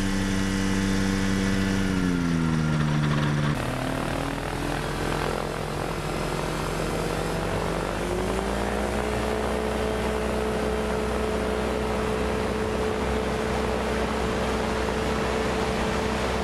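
Microlight trike's engine and pusher propeller running loud. The engine note drops in pitch as the throttle comes back, breaks off about three and a half seconds in, then climbs about eight seconds in and holds steady at high power.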